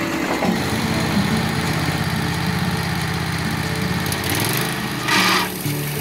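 Wood-Mizer LT15 portable band sawmill's engine running steadily, with a short burst of hiss about five seconds in.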